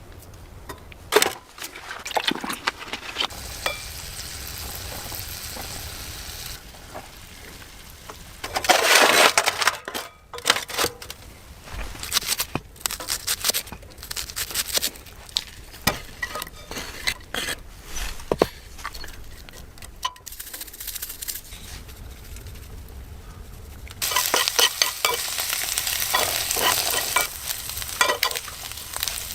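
Food sizzling and frying in a pan, with scraping and clicking as it is stirred; a louder spell of hissing comes near the end.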